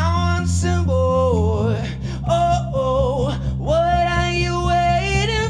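A male voice singing long wordless "oh" phrases, sliding between notes, over held notes on an electric bass guitar. The bass moves to a lower note about two seconds in.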